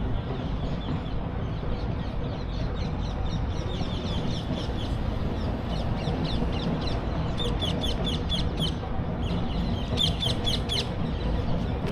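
Birds chirping in quick runs of short, sharp, high calls, several times over, loudest about ten seconds in, over a steady low outdoor rumble.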